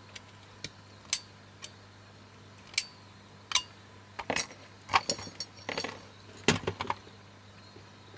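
Sharp metallic clicks and clinks as cutting pliers work thin glued metal frame pieces of a projector's optical block apart and the bent metal parts are handled. A few single snaps at first, then a denser clatter of metal from about four seconds in.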